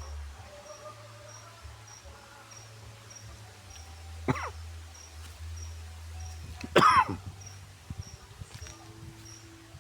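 An insect chirping steadily, about three chirps a second, over a low rumble, broken by two loud short calls that fall steeply in pitch, about four and seven seconds in.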